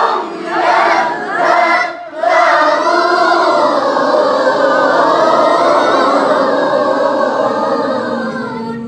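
Group of men's voices reciting Qur'anic verses together in unison, chanted in the Nahawand melodic mode. A short break comes about two seconds in, then one long drawn-out phrase that cuts off near the end.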